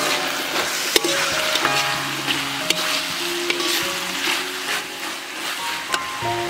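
Minced pork sizzling in a steel wok while a metal spatula stirs it, with scraping and sharp clicks of the spatula against the pan about once a second.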